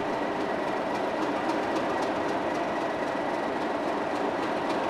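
Class 37 diesel locomotive's English Electric V12 engine idling steadily while standing at the platform, with a faint high whine above the engine note.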